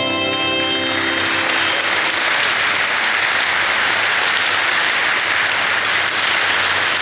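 The last notes of an acoustic string-band song ring out and fade within the first second or two, then an audience applauds steadily.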